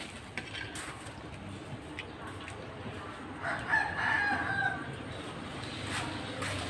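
A rooster crows once, about three and a half seconds in, a single call lasting over a second. Around it are a few faint light clicks, like a spoon touching a plate.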